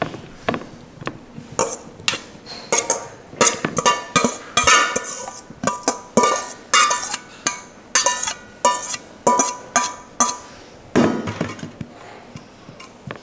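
A metal spoon clinking and scraping against a stainless steel mixing bowl as dressed salad is served onto a plate. The strikes come irregularly, and many leave a short metallic ring from the bowl.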